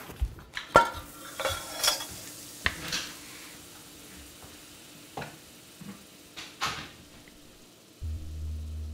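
Kitchen clatter: dishes, glasses and utensils clinking and knocking on a counter, a quick run of sharp clinks in the first three seconds, then a few scattered knocks. A steady low hum starts near the end.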